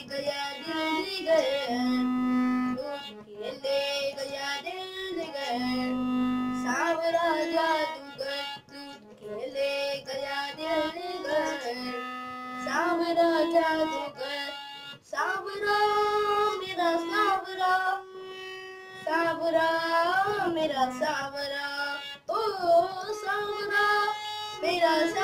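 A boy singing a Hindi Krishna bhajan and accompanying himself on a harmonium: a child's voice sliding and ornamenting over held reed notes, with short gaps between sung phrases where the harmonium's note sounds alone.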